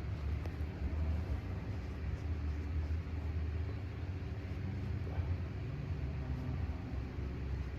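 Steady low rumble, with a faint short sound about five seconds in.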